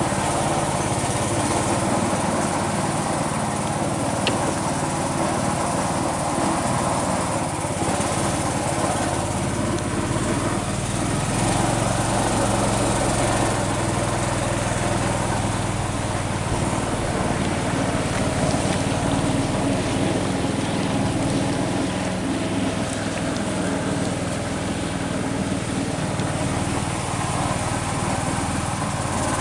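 Small boat engine running steadily at an even pace, with no change in speed.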